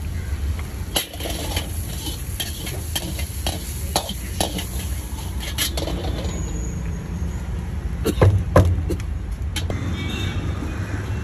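Street-stall ambience: a steady low rumble under scattered metal clinks and knocks of utensils, the loudest pair about eight seconds in.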